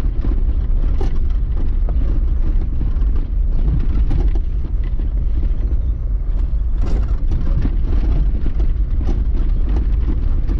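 Driving noise inside a small two-door Jeep: a steady low rumble of road and engine, broken by frequent short knocks and rattles.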